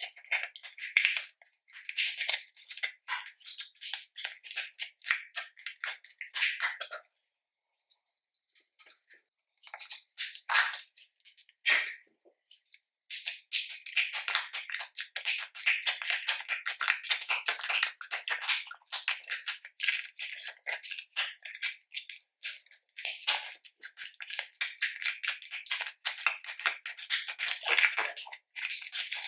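Slime being mixed and squished, a dense run of small crackling pops and squelches that thins out to a few scattered pops for several seconds in the middle.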